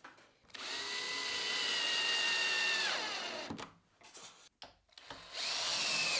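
Cordless drill-driver driving screws down through a mitre saw's base into the board beneath. It runs as a steady motor whine for about two and a half seconds, falling in pitch as it stops, then runs again briefly near the end.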